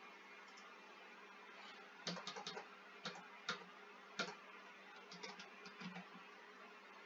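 Typing on a computer keyboard: a quick run of key clicks about two seconds in, a few single keystrokes, then another short run near the end, over faint steady room hiss.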